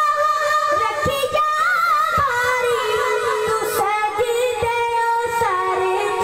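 A boy singing a Punjabi devotional song into a microphone. It is a single voice holding long notes with quick ornamented turns.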